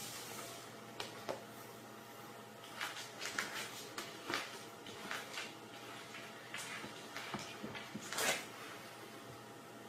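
A cat squeezing out through a narrow gap under a wooden board: scattered light clicks, rustles and scrapes as its body and paws brush the board and the wooden floor, over a faint steady room hum. The loudest is a longer scrape about eight seconds in, as it pushes its way out.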